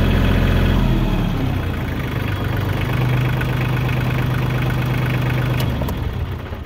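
Kioti compact tractor's diesel engine running, then throttled down about a second in to a steady idle. It cuts out near the end as the engine is shut off.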